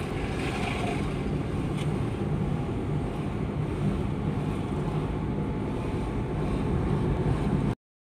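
Steady low rumble of a car's engine and tyres on the road, heard from inside the moving car; it cuts off suddenly near the end.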